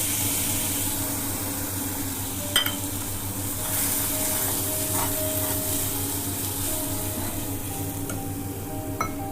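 Spiced water poured into a kadhai of hot onion, garlic and ginger paste fried in oil, sizzling hard and then settling as it is stirred, with two sharp clicks about two and a half seconds in and near the end.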